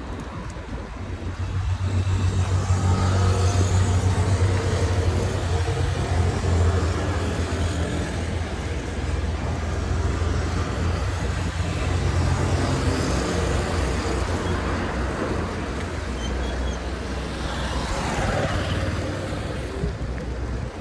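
Road traffic on the street beside a bike path: a steady low rumble of passing motor vehicles that swells about two seconds in. Near the end one vehicle goes by with its pitch falling.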